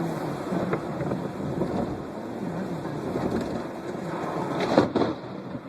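Thunderstorm: steady rain with rumbling thunder, and a sudden loud crack near the end.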